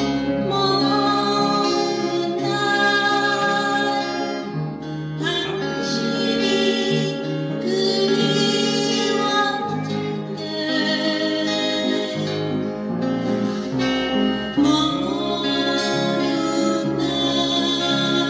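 Music: a song sung to acoustic guitar, with an upright piano played by ear along with it.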